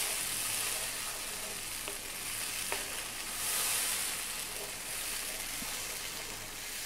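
Sliced onion, garlic, ginger and chopped chili sizzling in sunflower oil and citrus juice in a non-stick frying pan on high heat, stirred with a wooden spoon, with a few light taps and scrapes of the spoon on the pan. The sizzling stops abruptly near the end.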